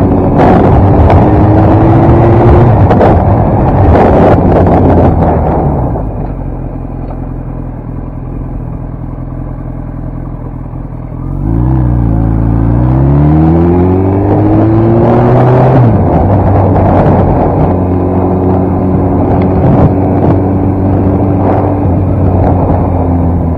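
Kawasaki ZX-10 sportbike's inline-four engine and wind rush on the helmet microphone. The bike runs at speed, then drops to a quieter, steady low engine note about six seconds in. Around eleven seconds in it pulls away again, engine pitch rising for several seconds before settling into a steady cruise.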